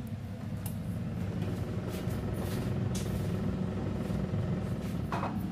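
Air fryer running: its fan motor makes a steady low hum, with a few light clicks.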